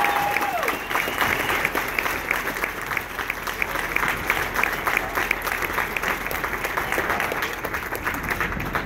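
A marching band's final held chord cuts off with a falling pitch about half a second in, followed by a crowd of spectators applauding in a gymnasium, with many distinct hand claps. The applause dies down near the end.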